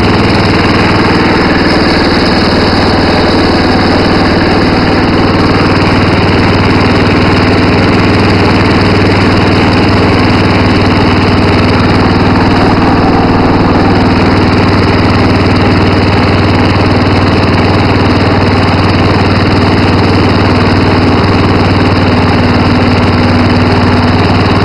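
Engine of a 10–12 horsepower Massey Ferguson garden tractor running steadily and loud as the tractor is driven along, heard from the driver's seat.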